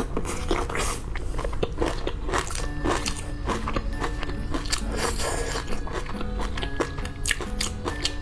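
Close-up crunchy biting and chewing of food, a quick run of irregular crackles, over background music.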